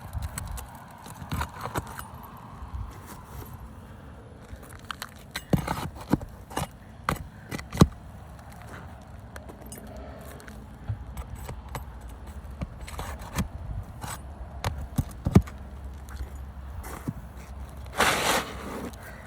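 Scattered metal clicks, taps and scrapes of hand tools prying at asphalt roof shingles and their nails, with a longer rasping scrape near the end.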